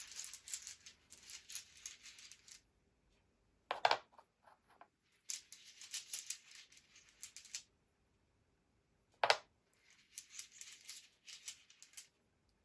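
Witch's runes rattling as they are shaken and stirred, in three spells of about two seconds each, with two single sharp knocks in between.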